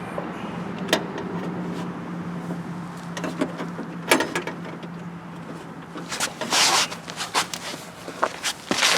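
Scattered clicks and light rattles of lock rods and plastic clips being handled inside a car door, with a short scraping rustle about six seconds in. Under it runs a steady low hum that stops about six seconds in.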